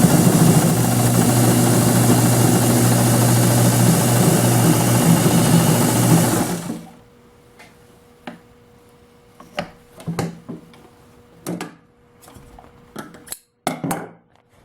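American Home Deluxe straight-stitch sewing machine by Brother running steadily on its belt-driven motor, sewing tracing paper on a fine stitch, and stopping suddenly about seven seconds in. A few short clicks and rustles follow.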